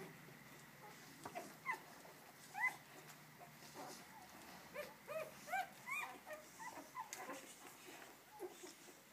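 Newborn German Shepherd puppies squeaking and whimpering at the mother's teats: short, high squeaks, two about a second and a half and two and a half seconds in, then a quick run of several around five to six seconds in, then fainter ones.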